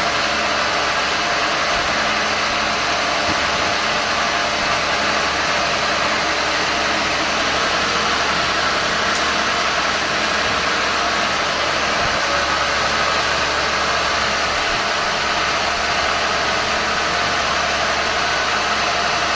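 Cotton candy machine running, its spinning head and motor giving a steady whirring hum.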